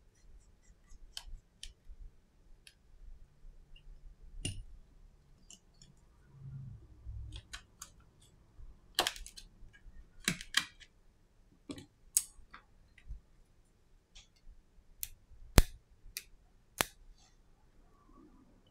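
Scattered sharp clicks and light taps of small tools and a phone being handled while an iPhone SE (first generation) is taken apart: screwdriver and pry tools working around the phone as its display is pried up from the frame, with one sharper snap in the last few seconds.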